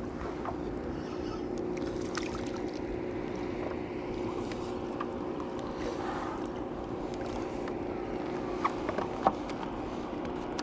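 Water rushing and lapping along the hull of a Hobie Lynx kayak under way, under a low steady hum, with scattered small clicks and knocks.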